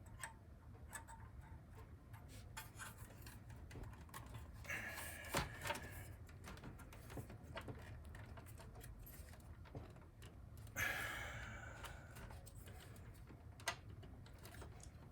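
Faint scattered clicks and taps of a Molex power connector being handled and pushed into its socket inside a Power Mac G4, with louder scraping of the plastic about five seconds in and again about eleven seconds in.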